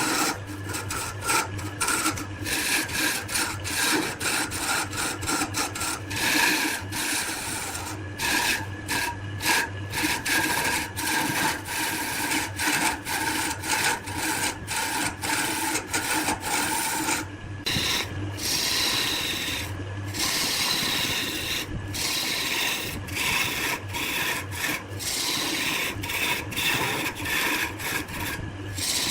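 Wood turning on a lathe: a cutting tool scraping against the spinning wood in a continuous scraping noise broken by frequent brief gaps.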